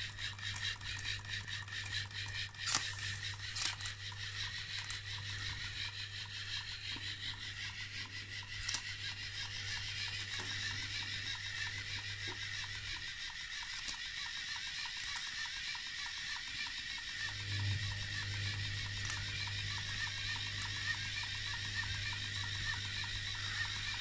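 A LEGO pneumatic pump rig runs with a steady low hum and a high hiss. The hum stops for about four seconds midway, then starts again. A few sharp clicks sound scattered through it.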